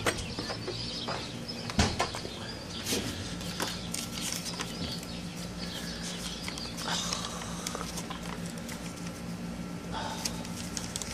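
Rustling and knocking of a phone being handled and carried, with a few sharp clicks in the first two seconds, over a steady low hum.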